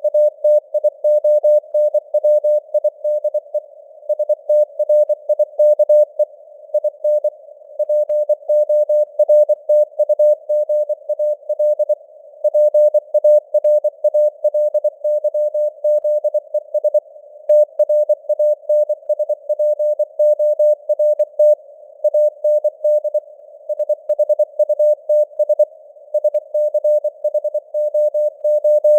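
Morse code sent at 24 words per minute as a single steady mid-pitched tone keyed rapidly on and off, spelling out news headlines. Between the characters a soft band of simulated radio hiss is heard.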